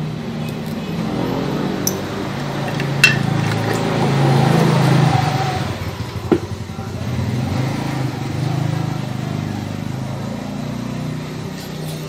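A motor vehicle's engine running and passing by, getting louder around four to five seconds in and again near eight seconds, with two sharp clicks.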